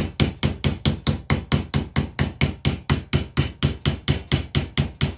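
Rapid, even hammer strikes on metal, about five a second, driving at a WWII German bayonet blade rusted fast in its scabbard, which is held in a vise. The hammering stops near the end; the blade is seized in the scabbard by rust.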